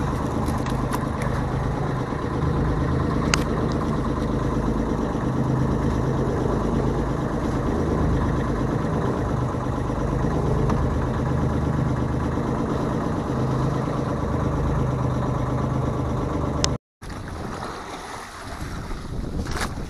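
Outrigger boat's engine running steadily with a low, even hum. About seventeen seconds in, the sound cuts to wind buffeting the microphone and waves splashing against the hull.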